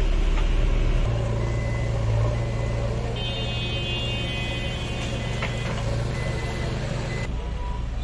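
Diesel engine of a JCB 3DX backhoe loader running steadily as it digs. High beeping tones come and go over it, most densely in the middle.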